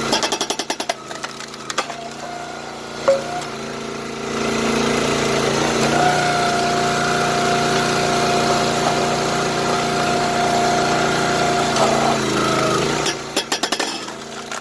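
A 22-ton gas-engine hydraulic log splitter running. About four seconds in the sound grows louder and a steady whine joins, as the engine and pump take the load of the ram pushing through a log. Near the end it drops back, with rapid clicking at the start and again near the end.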